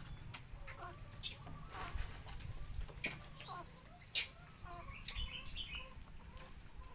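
Scattered short chirping animal calls, with one sharp high call sweeping downward about four seconds in, the loudest sound, over a low steady rumble.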